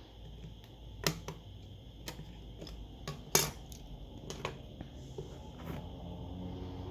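Light, sharp clicks and taps of small metal tools and parts being handled during smartphone disassembly, about eight in all and irregularly spaced, the loudest a little over three seconds in.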